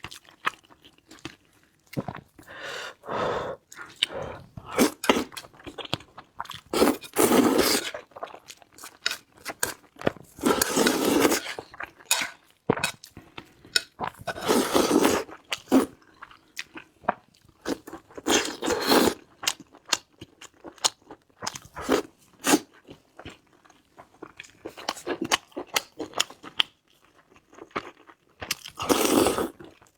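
Close-miked chewing and mouth sounds of a person eating chunks of braised pork belly, in irregular bites with short pauses and several longer, louder mouthfuls.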